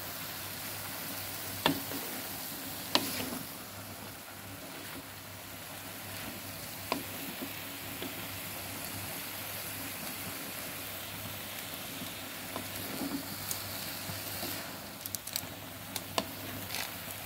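Long beans and tempe sizzling steadily as they are stir-fried in an aluminium wok, with the spatula scraping through them and knocking sharply against the pan a few times, in a quick run of small knocks near the end.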